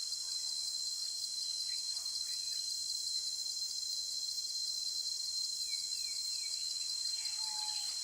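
Steady, high-pitched outdoor insect chorus with a few faint bird chirps, including three quick descending chirps a little past the middle.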